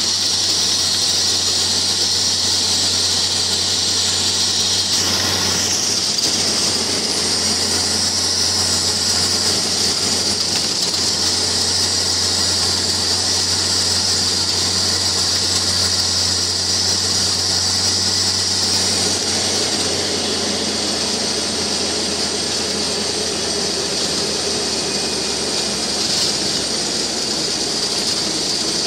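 Jeep driving along a road: a steady engine drone with tyre and wind noise, heard as a constant low hum under a strong hiss.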